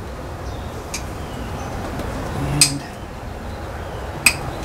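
Three sharp metallic clinks of a hand tool against metal fittings, about a second and a half apart, the middle one loudest, over a steady low background hum.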